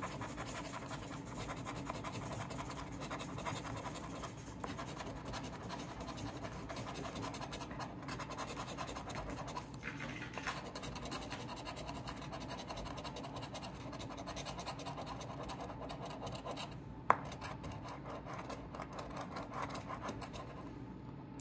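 A coin scraping the latex coating off a paper scratch-off lottery ticket in rapid, continuous strokes. A single sharp click stands out late on.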